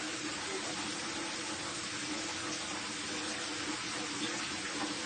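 Water running steadily from a bathtub tap, an even rushing hiss.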